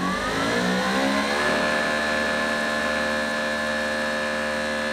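Greenworks Pro 2700 PSI electric pressure washer's brushless induction motor and pump spinning up after being switched on: a rising whine, like a jet engine warming up, that levels off about a second and a half in and then runs steady. The slow ramp is the machine's JetFlo start-up delay, its pressure fluctuating before it reaches its rating.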